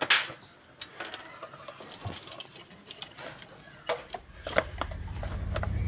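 Light metallic clicks and clinks of small engine parts being handled. From about four seconds in, a low engine rumble of a motor vehicle comes in and grows steadily louder.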